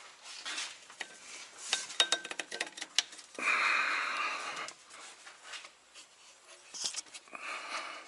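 Metal tools clinking and tapping against engine parts while a drive belt is fitted over the pulleys, with a rasping scrape about three and a half seconds in that lasts just over a second and a shorter one near the end.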